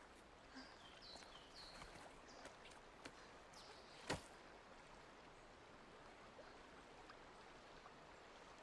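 Faint flowing river with a few short high chirps in the first few seconds, and one sharp snap about four seconds in, the loudest sound.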